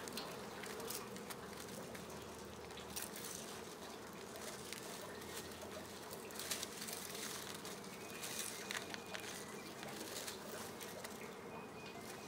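Dry pipe-grass stalks rustling and crackling irregularly as hands pull and bind them into a hand broom, over a faint steady hum.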